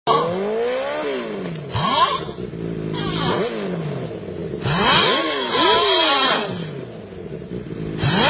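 Snoring that sounds like a motorcycle revving: several rising and falling glides in pitch, broken by harsh bursts of hiss.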